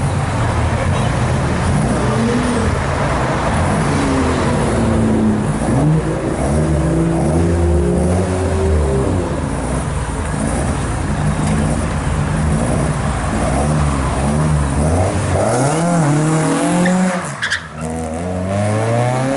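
Mk1 Ford Escort engine revved hard again and again, rising and falling in pitch, with tyres squealing as the car slides round. Near the end it accelerates away, the engine note climbing as it pulls.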